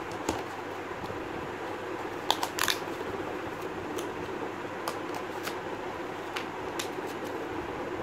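Cardboard puzzle-cube box being handled: scattered short clicks and taps as the cube is fitted back into the box and its flaps are closed, with a cluster of louder ones a little over two seconds in, over a steady background hiss.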